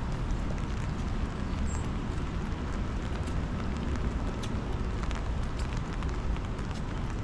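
Wet-weather city street ambience: a steady low rumble with scattered light ticks throughout.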